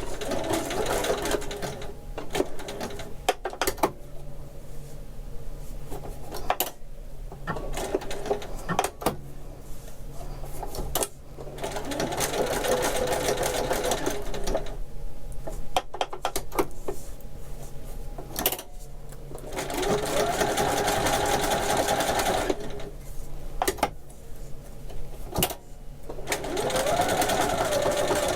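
Domestic sewing machine stitching in short runs, stopping and starting about five times, with sharp clicks in the pauses as the work is turned to sew crosshairs through a Velcro patch.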